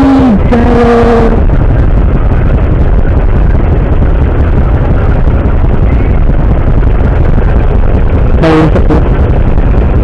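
Yamaha Mio Sporty scooter's single-cylinder four-stroke engine, fitted with a 28 mm Keihin carburettor, running in slow stop-and-go traffic, with a heavy low rumble on the microphone. Two short pitched tones sound, one right at the start and one near the end.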